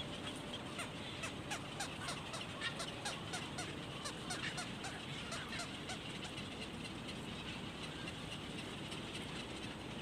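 Heron nestlings in the nest give quick, short rising peeps, several a second. The peeps are thickest in the first half and thin out after about six seconds, over a steady low background noise.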